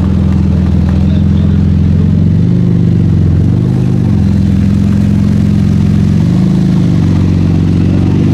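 Porsche 991 GT2 RS's twin-turbo flat-six running at low revs as the car rolls slowly. The engine note rises and falls briefly a couple of times with light throttle.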